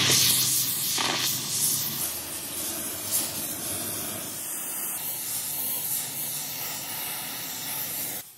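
Gas torch flame hissing steadily as it heats the pipe wrench's steel jaw red-hot for hardening, with a low steady hum under it for the first couple of seconds.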